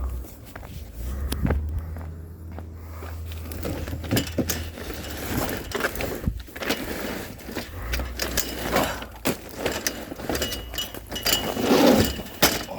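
Firewood logs being unloaded, knocking and clattering against each other in irregular knocks, busiest and loudest near the end.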